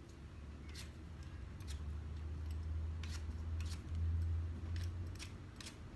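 Vegetable peeler scraping strokes along a raw potato, a short stroke about every second, over a low steady hum.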